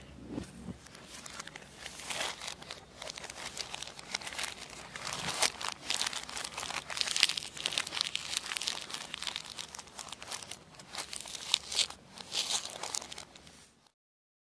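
Clear plastic shrink wrap on a small cardboard box being slit with a scalpel and torn and peeled off by hand, crinkling and crackling. It cuts off suddenly near the end.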